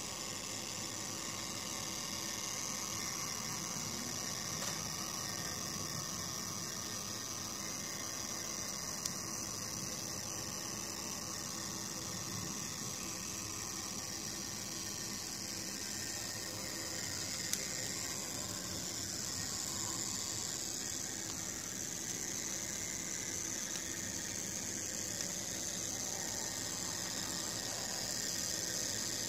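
Märklin 36240 model steam locomotive running slowly along the track: a steady whir and hiss from its motor, gearing and wheels on the rails, with a couple of faint clicks.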